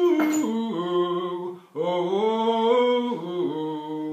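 A man singing solo and unaccompanied, holding long notes that step up and down in pitch, with a quick breath about two seconds in.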